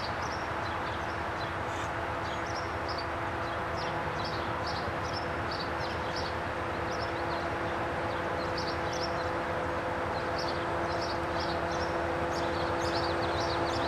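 Birds chirping over a steady humming tone from an approaching Norfolk Southern diesel-led freight train, the sound growing slowly louder as the train nears.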